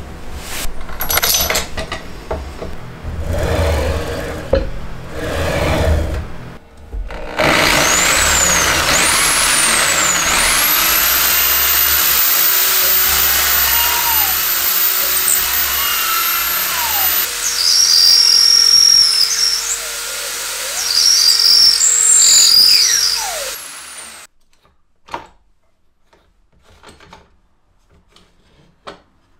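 Bosch GBM13RE corded electric drill running for about sixteen seconds, its whine gliding up and down in pitch as the bit bores into the edge of a wooden board. Several seconds of irregular knocks and rustling come first. The drill stops abruptly about 24 seconds in, leaving only faint clicks.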